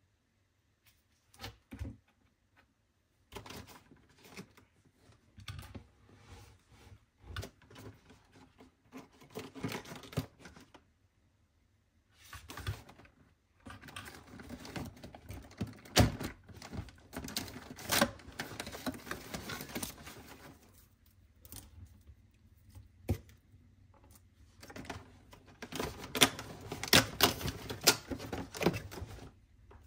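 Long fingernails tapping and scratching on a plastic lotion tube and the cardboard of an advent calendar, with cardboard rustling and sharp clicks as a calendar door is opened and a small plastic item pulled out. The clicks come thickest and loudest near the end.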